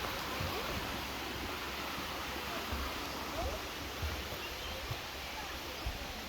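Steady rush of water from a waterfall cascading over limestone, with a few short low thumps.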